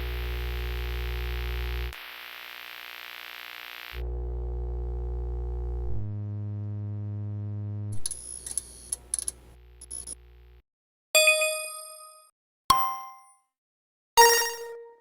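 A run of short synthetic sound effects. First come sustained buzzy electronic tones that step to a new pitch about every two seconds, then a patch of glitchy clicks. Last come three separate struck metallic dings, each ringing out and fading over about a second.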